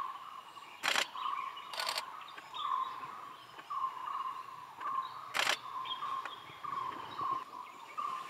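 A bird repeating one short note about twice a second, with fainter, higher bird chirps around it. Sharp camera shutter clicks cut through about a second in, as a quick burst about two seconds in, and again about five and a half seconds in.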